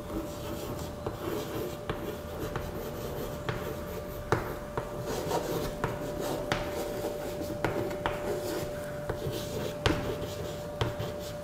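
Chalk writing on a chalkboard: irregular taps and short scratchy strokes as letters are formed, over a faint steady hum.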